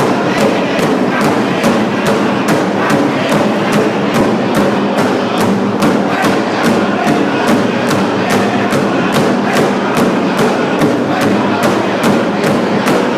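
Powwow drum group singing together over a big drum struck in a steady beat, about three strokes a second.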